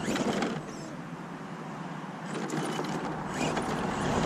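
MST MTX-1 RC monster truck crawling over rocks on its Dynamite 3000kV electric motor: the drivetrain works in short bursts, once at the start and again for about a second in the middle, with mechanical whirring and creaking as it climbs.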